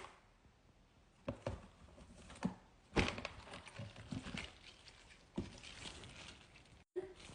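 Small toys being handled: a series of light knocks and clicks as they are picked up and set down, with rustling in the middle.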